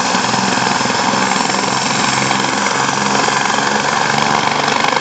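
Helicopter running close by: a loud, steady din of engine and rotor.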